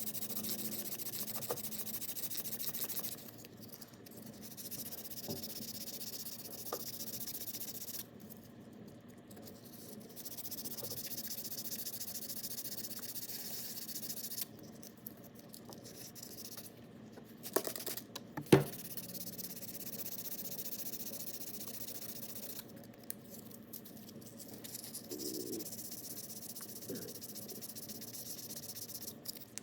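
Abrasive paper rubbing over the JB Weld repair on an outboard prop shaft's seal surface, smoothing it down. The hissing scratch comes in spells of several seconds with short pauses, and a sharp knock about eighteen seconds in is the loudest sound.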